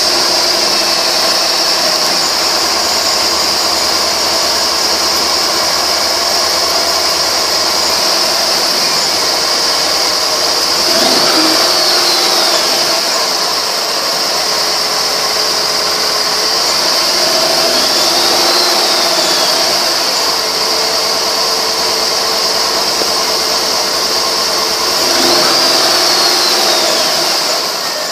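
Chevrolet 5.3-litre V8 idling steadily just after starting, with a constant high whine over the engine sound. Three times, about every seven seconds, the pitch briefly rises and falls.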